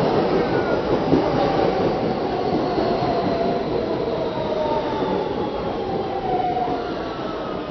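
New York City subway train pulling into the station and slowing to a stop: a loud rumble of wheels on rail with a motor whine that falls slowly in pitch as the train brakes, gradually quietening.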